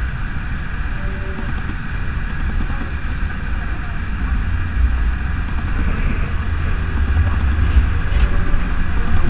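Bombardier M5000 tram pair moving off and running past close by: a low rumble of wheels and running gear that grows louder as it draws near.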